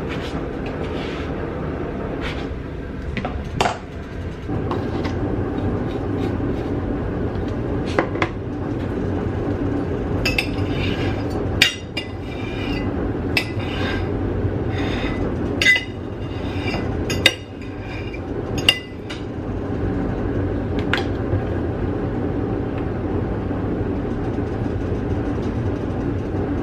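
Kitchen dishes and utensils clinking and clattering, with a cluster of sharp, ringing clinks through the middle, over a steady low rumble.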